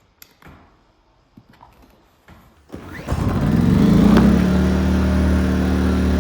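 Small inverter generator's engine starting after a few faint clicks and knocks, its speed rising for about a second and then settling into steady running. It now runs on the newly fitted ignition coil and spark plug.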